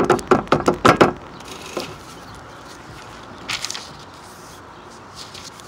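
Hands drumming fast on the patio table top, a quick drum roll of sharp knocks, stopping about a second in. A few faint taps and rustles follow as the sketchbook is handled.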